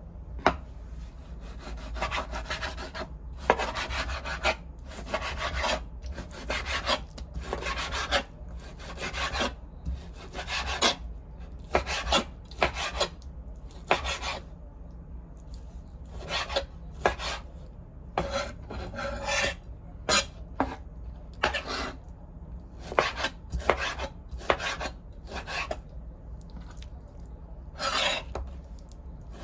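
Irregular scraping and cutting strokes of a kitchen utensil during food preparation, coming in runs with short pauses, over a steady low hum.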